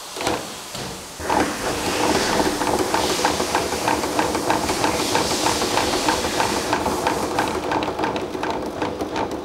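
Corded electric drill spinning a cut-open automotive air conditioner compressor at low speed, starting about a second in: the drill's motor whine over the swash plate and pistons turning with a fast, even clicking clatter.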